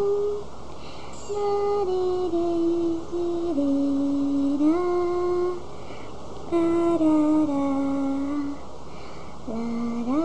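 A person humming a slow tune in long held notes, stepping and sliding between pitches, in phrases of a few seconds with short pauses between them.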